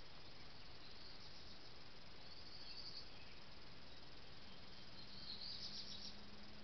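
Faint, high-pitched, cricket-like chirping in three short bouts over a steady hiss: a brief one about a second in, a longer one around two and a half seconds, and the loudest around five to six seconds. A faint low hum comes in past the middle.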